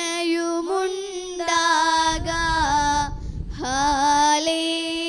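A high solo voice singing a slow Malayalam liturgical chant of the Malankara Mass, with long held, ornamented notes. The chant breaks off briefly past the middle, where a low rumble comes through, then resumes.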